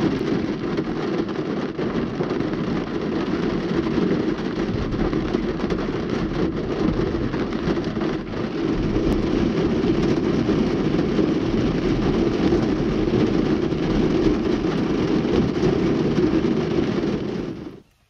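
Heavy rain drumming steadily on a pickup truck's roof and windshield, heard from inside the cab during a thunderstorm; it cuts off suddenly near the end.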